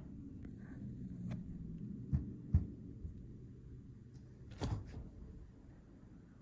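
Soft knocks and taps of objects being handled: two close together about two seconds in and another near five seconds, over a low steady hum.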